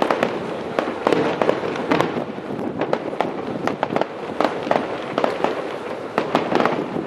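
Fireworks display: a rapid, irregular string of bangs and crackles from bursting shells, several every second, over a continuous din.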